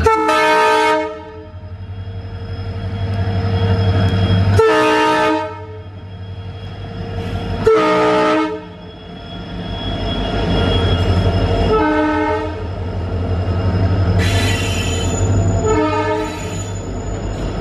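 WDP4D diesel-electric locomotive blowing its multi-tone horn in five blasts, a few seconds apart. The first three last about a second and the last two are shorter, over the steady low drone of its diesel engine as it passes close by. Its passenger coaches then roll past on the rails.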